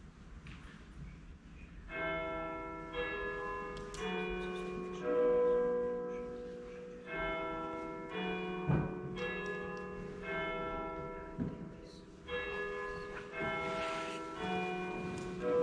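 Church bells ringing, starting about two seconds in: several bells of different pitch struck in turn, each note ringing on and fading, in uneven groups with short pauses.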